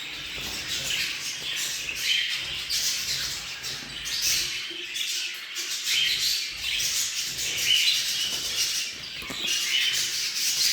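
A flock of small parrots, budgerigars and lovebirds, chattering with many overlapping high chirps and squawks.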